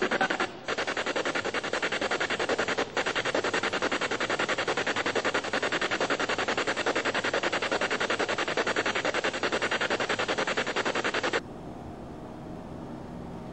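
Spirit box sweeping through radio stations: fast, choppy pulses of static. It cuts off abruptly about eleven seconds in, leaving a quiet steady hiss.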